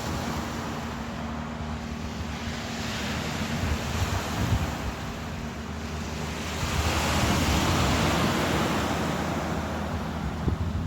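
Ocean surf: a steady wash of waves that swells to a louder surge about two-thirds of the way through, then eases off. Low wind rumble runs underneath.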